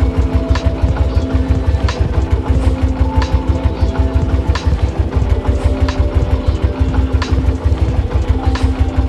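Motorcycle engine idling steadily with a quick, even firing pulse.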